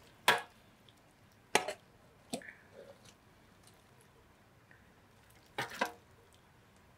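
Enamel plate clinking and scraping against the rim and sides of a large aluminium cooking pot as thick chicken curry is scooped out and spread, with soft wet squishes of the gravy. A few short sharp clinks, a second or more apart, two of them doubled.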